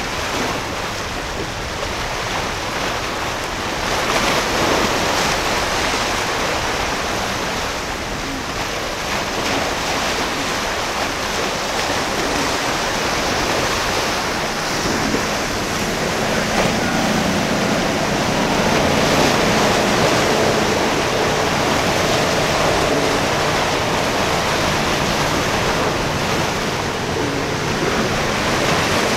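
Waves and rushing surf with wind buffeting the microphone. From about halfway through, the hum of an approaching boat's engines builds faintly beneath the water noise.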